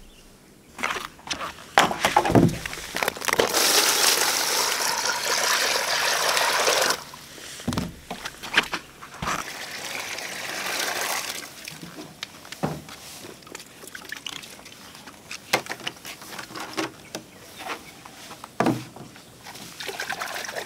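Water pouring or splashing for a few seconds, then again more softly, amid scattered clicks and knocks of things being handled.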